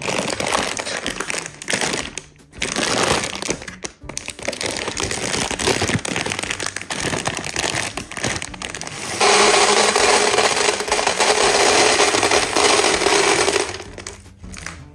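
Dry pantry food rattling as it is poured into storage containers, with crinkling packaging. There is one long, steady pour from about nine seconds in until near the end.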